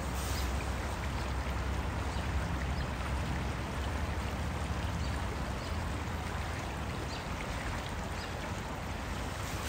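Steady rush of river water flowing below a footbridge, with a low rumble underneath that eases about six seconds in.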